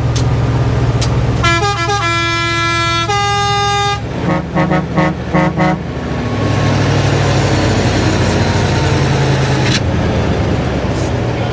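A truck horn sounding over a diesel truck engine: a long horn blast that changes note several times, then a quick run of short toots, then the engine running on alone.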